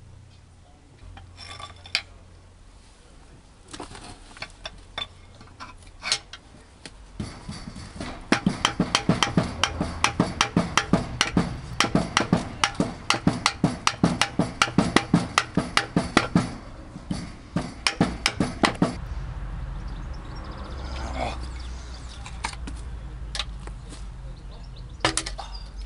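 Metal tools tapping and clinking on a stripped diesel engine block and piston: a long run of sharp metallic taps, about four a second, starting a few seconds in and stopping well before the end. A steady low hum follows, with a few scattered clicks.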